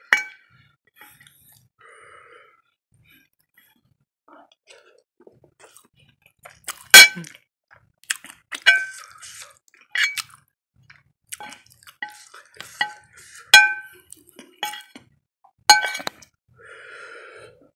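A metal spoon clinking against a ceramic plate: about ten sharp, ringing clinks at irregular intervals, the loudest about seven seconds in.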